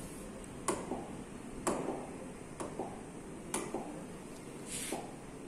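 Fingertip taps on the glass of an interactive flat-panel touchscreen: about six irregular clicks, the loudest a little under two seconds in, with a short hiss near the end.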